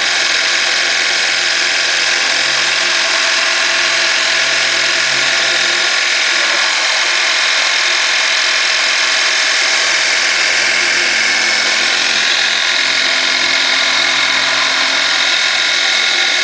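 CNC-converted Optimum BF20L milling machine with its end mill cutting aluminium: a loud, steady machining noise with several high tones held over it.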